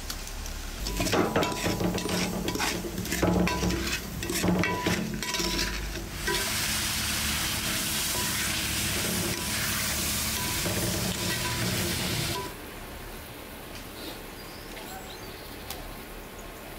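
Wooden spoon stirring diced pumpkin and sugar in a large metal pot, with irregular scrapes and knocks against the pot for the first few seconds. From about six seconds a steady loud hiss of the steaming pot takes over, and it cuts off suddenly after about six more seconds, leaving a quieter simmer.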